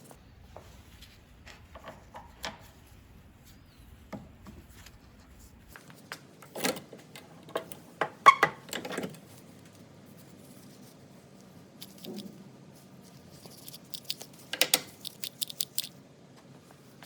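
Scattered clicks, clinks and light knocks of small tool parts being handled on a workbench, busiest in the middle, with a quick run of ticks near the end.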